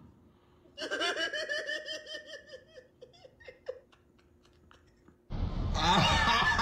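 A person laughing, a quick run of short ha-ha bursts that fades out over about three seconds. Near the end a louder, noisy sound with voices cuts in suddenly.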